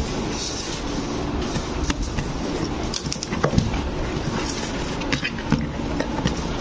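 Cardboard shipping box being opened by hand: flaps scraping and folding, and packing paper rustling and crinkling, with scattered sharp crackles and knocks over a steady low rumble.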